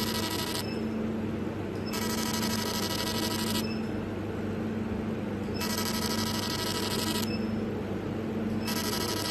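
Electric tattoo or tattoo-removal device buzzing in repeated bursts of about a second and a half, with pauses of about two seconds, over a steady low hum.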